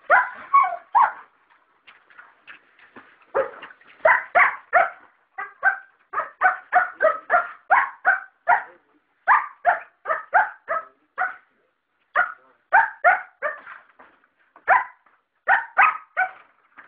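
Dog barking over and over: short, sharp, fairly high-pitched barks, about three a second, in runs broken by short pauses.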